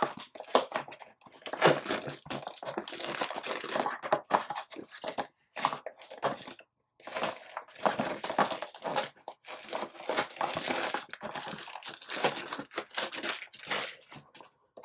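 Plastic wrapping being torn and crinkled as a trading-card hobby box is opened: a long run of irregular rustles and rips with a couple of short pauses.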